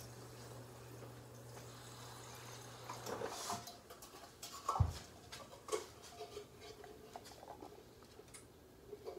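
Faint scattered clicks and crackles with light knocks, and one dull thump about five seconds in; a low steady hum stops after about three and a half seconds.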